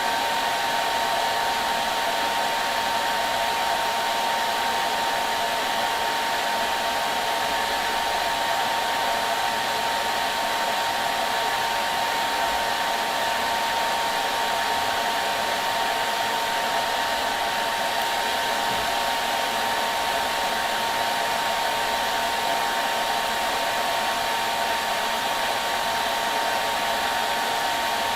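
Hair dryer running steadily: a constant rush of air with a steady whine from the motor, unchanging throughout, used as white noise to soothe babies to sleep.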